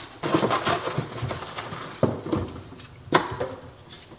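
Raw potatoes being washed and handled: a stretch of rubbing and rattling, then hollow knocks about two and three seconds in as potatoes hit a hard surface.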